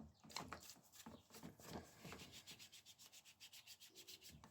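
Cloth rag rubbing quickly back and forth over a bicycle water bottle cage to polish it, a faint run of fast, even strokes.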